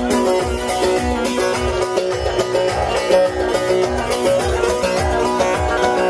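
Instrumental break in live Turkish folk wedding music: a bağlama (long-necked saz) plucks a quick melody over a steady beat of about two pulses a second.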